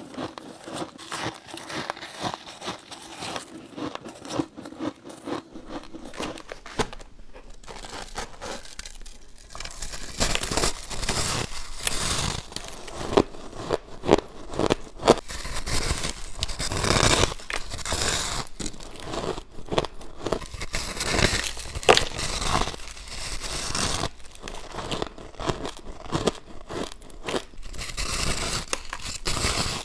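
Close-up crunching and chewing of crushed ice, then from about ten seconds in, louder crisp bites into a slab of refrozen powdery shaved ice that crumbles with each bite.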